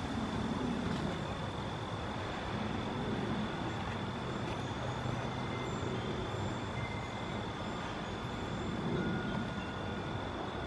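Steady low rumble of outdoor background noise, with a thin, steady high tone over it.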